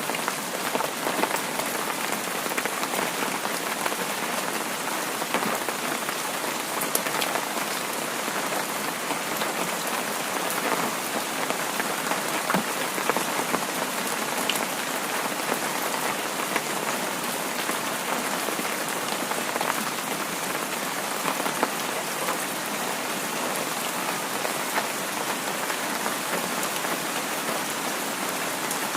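Heavy rain falling steadily, a dense even patter with scattered sharper drop ticks.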